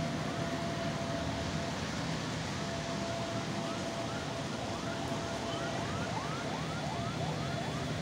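Steady hiss of rain with a siren over it: first a steady tone, then from about three seconds in a run of quick rising whoops, about three a second, clearest near the end.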